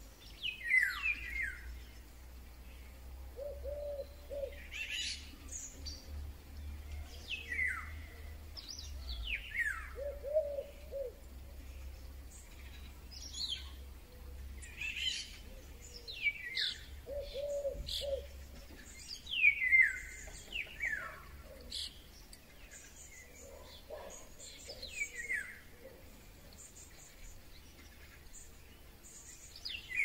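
Golden-oriole-style song: short whistled phrases sliding downward in pitch, repeated every two or three seconds, which the recordist suspects may be common starlings imitating a Eurasian golden oriole. Other birds call in the background, including a few short low notes.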